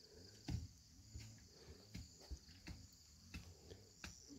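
Faint, steady high chirring of crickets or other insects, with soft irregular clicks and knocks now and then.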